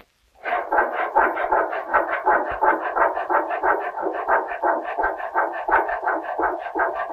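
A cooper's hand tool working the wood of an oak cask in fast, even, rasping strokes, about five a second. The strokes start about half a second in and keep up the same pace.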